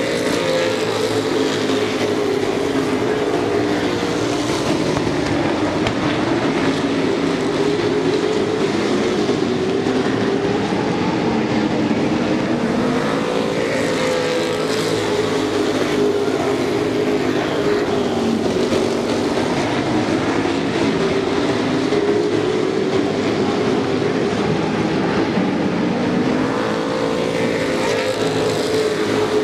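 A pack of Super Pro Truck race engines running at racing speed, their overlapping engine notes rising and falling as the trucks come through the turns and go down the straights.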